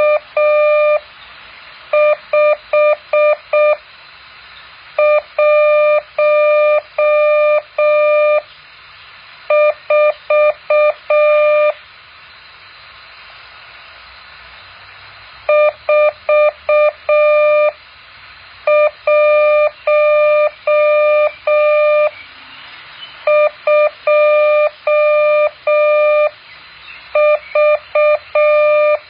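Morse code practice tone: a single steady beep keyed on and off in dots and dashes, sent in clusters of characters with pauses of one to two seconds between them and a longer pause of about four seconds near the middle. A faint hiss fills the gaps between the clusters.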